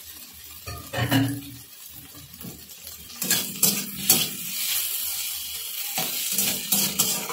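Flat metal spatula scraping and knocking against a metal kadhai as potato pieces and onions are stirred, over oil sizzling. The sizzle grows louder from about three seconds in.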